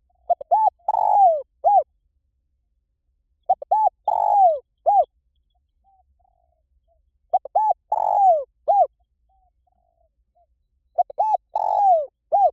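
Spotted dove cooing: four repeated phrases about every three and a half seconds, each a couple of short coos, a longer falling croo, and one short closing coo.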